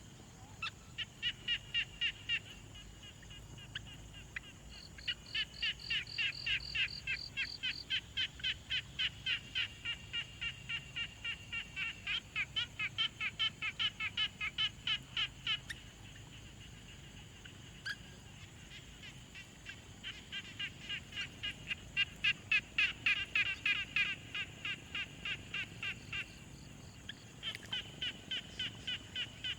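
Pond frogs calling in long runs of rapid, evenly spaced croaks, in several bouts with short pauses between them. A steady high-pitched tone continues underneath.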